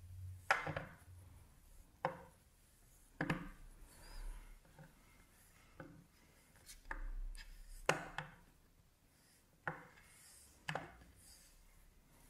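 Hands pressing and smoothing a polymer clay cane against a tile work board: faint, irregular soft taps and rubs, one every second or so, with a longer rub about seven seconds in.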